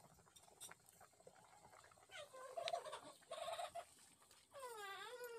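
An animal calling: three pitched calls that rise and fall, the last and longest near the end.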